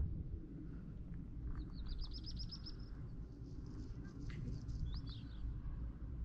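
A small songbird singing: a rapid trill of about ten high notes lasting just over a second, then a few short chirps near the end, over a low steady rumble.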